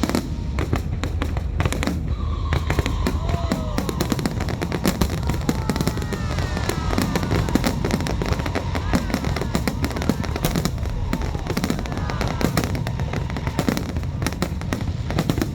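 Aerial fireworks bursting and crackling in a dense, rapid stream, with music playing alongside.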